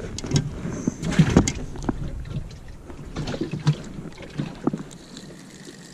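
Irregular knocks and thuds of gear being handled inside a small fishing boat's hull, a deck hatch lid among them. They are loudest and most frequent in the first couple of seconds and thin out after that.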